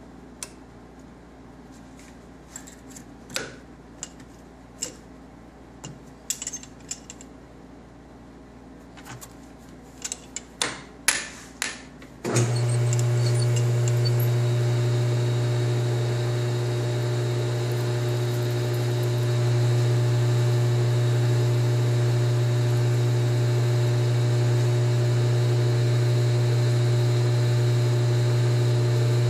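Scattered sharp metal clicks and taps of tooling being handled at the lathe. About twelve seconds in, the lathe's motor starts suddenly and runs with a loud, steady hum while a .308 chamber reamer is fed into the rifle barrel.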